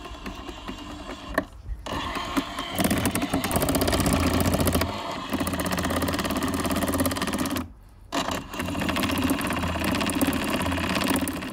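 Poolsana Pro Next pool robot running on its drive motor with a fast, even mechanical rattle and a low hum, cutting out briefly twice. Its toothed drive belts are worn down and have lost their teeth, so the robot no longer moves.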